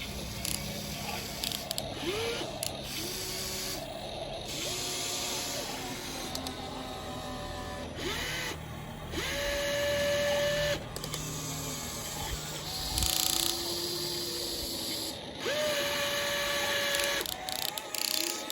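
RC excavator's small electric motors whining in repeated runs of one to two seconds, each rising quickly in pitch at its start and then holding steady, at several different pitches, over a low steady hum.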